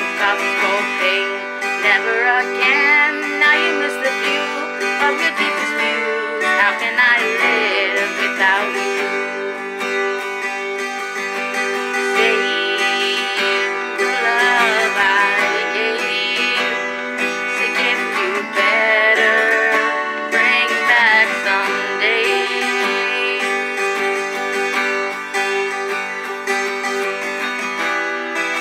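Acoustic guitar strummed steadily through chord changes in an instrumental break between sung verses.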